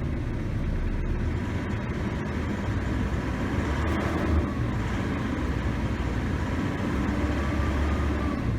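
Isuzu D-Max pickup's engine held steadily at about 2,000 rpm while the air conditioner runs at full fan and maximum cold during an AC test.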